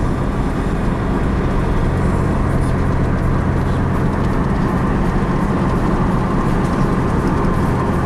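Cabin of a 2003 Pontiac Grand Am GT driving with the windows down: steady road and tyre noise with a constant low hum from the front of the car. The hum is the sign of a bad front wheel bearing.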